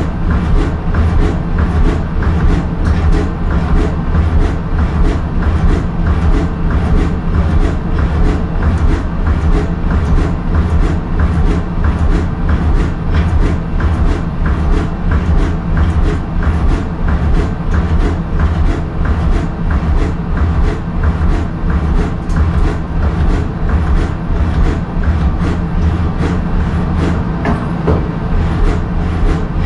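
A keyway broach on a CNC lathe cutting a keyway in a part's bore, stroking back and forth in a fast, even rhythm of short clacks over the machine's steady hum.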